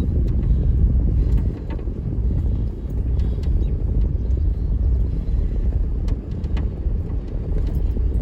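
Road and engine noise heard from inside a moving vehicle: a steady low rumble, with a few faint ticks.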